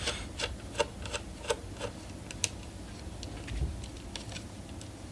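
Small sharp clicks and ticks of a screwdriver working the backplate screws of a graphics card: a quick run of them over the first two and a half seconds, then a few fainter ones.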